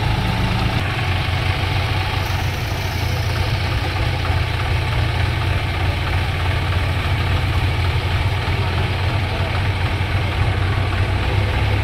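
John Deere tractor's diesel engine idling steadily.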